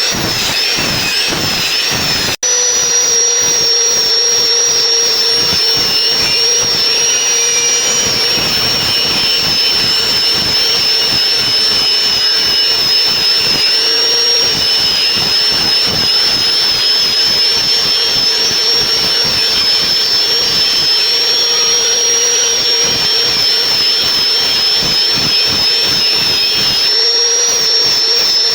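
Large-blade log saw running steadily, a loud continuous high whine over a rapid rattle, with a brief break about two seconds in.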